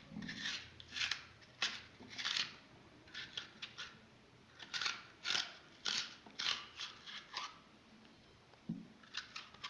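Crisp, irregular scraping and cutting strokes, one or two a second, as the flesh of a raw turnip is carved out to hollow it.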